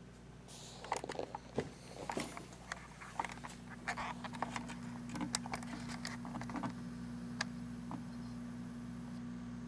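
Handling noise: irregular clicks and rustles for about seven seconds, with a steady low hum that starts about three seconds in.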